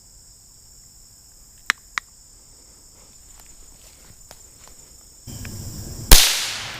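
Crickets and other insects chirring steadily, with a few light footstep crunches. About six seconds in comes a single sharp .22 rifle shot, the loudest sound, fading off with a short echo.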